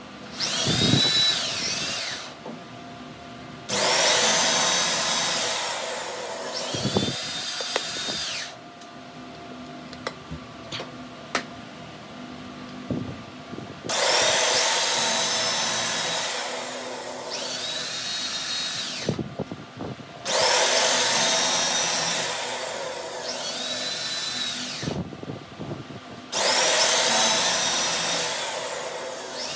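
A handheld power tool run in about five bursts of a few seconds each, with a high whine, working metal in gear-tooth cutting.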